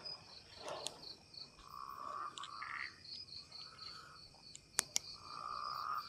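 Crickets chirping at night in a steady high pulse, about four chirps a second. Two sharp clicks come close together near the end.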